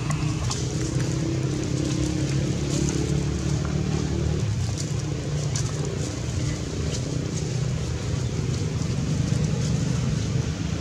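A steady, low motor hum, like an engine running at idle, with a few faint clicks over it.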